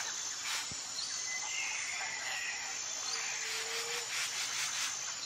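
Outdoor ambience of insects with a steady high-pitched drone and a few short bird chirps in the middle.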